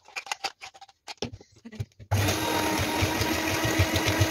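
A few short knocks and clatter, then about two seconds in an electric hand mixer switches on and runs steadily, its beaters working cake batter in a steel bowl.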